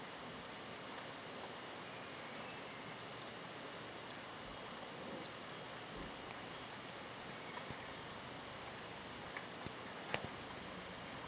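Seiko 7T34 quartz chronograph's alarm beeper sounding about four seconds in: four groups of rapid, high-pitched electronic beeps, about one group a second, for some three and a half seconds. A single sharp click follows near the end.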